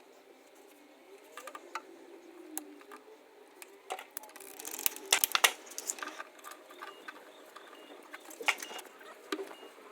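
Irregular clicks, clinks and light knocks of hand tools and fittings being handled during a gas combi boiler installation. A quick flurry of them comes about five seconds in, and there is one sharper knock later.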